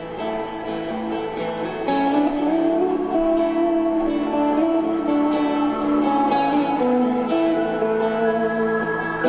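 Alt-country band playing live through an instrumental break with no singing: strummed acoustic guitar under a held, sliding lead melody line, the music getting louder about two seconds in.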